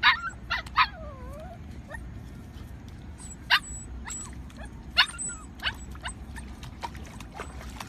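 A dog yelping and whining in short, high cries. Three come close together at the start, one trailing off into a falling whine, then single yelps about three and a half and five seconds in.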